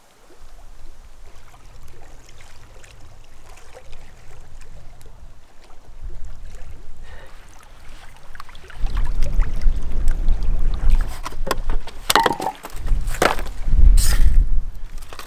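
Wind rumbling on the microphone over small waves lapping at the lake shore, getting much louder about nine seconds in. A few short, sharp crackles come near the end.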